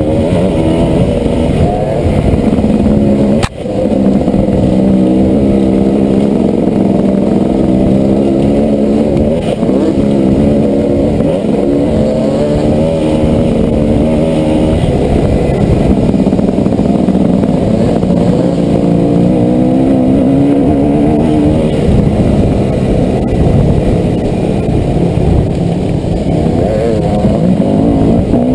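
Dirt bike engine running hard along a trail, its revs rising and falling with throttle and gear changes. There is a brief break in the sound with a knock about three and a half seconds in.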